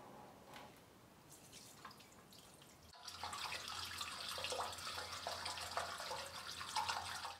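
Water pouring from a plastic jerrycan's spout down into an open PVC vent pipe, starting about three seconds in after a quiet stretch. The drain-and-vent plumbing is being filled with water to test it for leaks.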